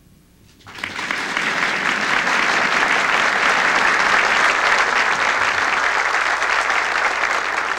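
Audience applauding: many people clapping, starting under a second in and holding steady.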